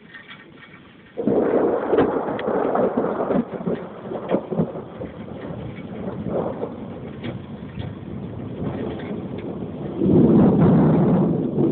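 Thunder: a sudden loud crack about a second in that rolls on into rumbling, then a second loud rumble near the end, over steady rain.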